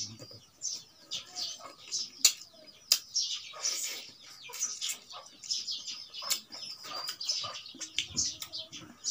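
Close-miked eating sounds: wet chewing and lip smacking as a handful of rice and meat is eaten by hand, with a couple of sharp clicks a little after two seconds in.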